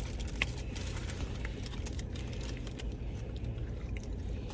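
Faint clicks and small sounds of someone eating a burger and fries, over a steady low rumble.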